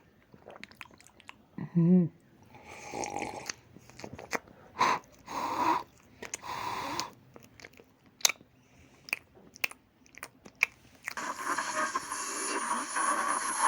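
Crunching and chewing sounds made up of scattered clicks and short noisy bursts, with a brief high squeak about two seconds in. About eleven seconds in, a steady rushing noise starts and continues.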